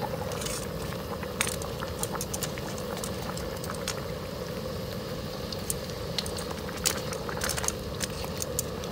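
Goat meat simmering in a thick soy-and-Coca-Cola sauce in a steel wok on a portable gas stove, with metal tongs clicking and scraping against the wok as the meat is turned. Scattered sharp clicks sit over a steady low rush.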